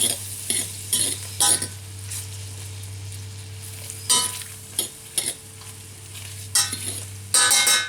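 Shrimp sizzling in butter and olive oil in a hot frying pan, with a utensil scraping and clinking against the pan in short strokes as it is stirred; the longest, loudest scrape comes near the end.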